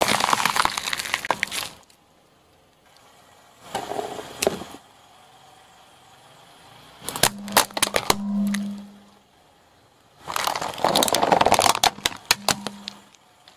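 A car tyre rolling over and crushing things: a crunch as a bell pepper bursts, then a red plastic cup giving way in a run of sharp cracks and snaps, with a longer crackling crunch near the end as it breaks apart.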